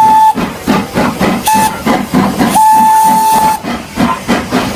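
Steam locomotive sound: rhythmic chuffing under a single-tone steam whistle, which cuts off just after the start, gives a short toot about one and a half seconds in, and blows a longer blast of about a second near the three-second mark.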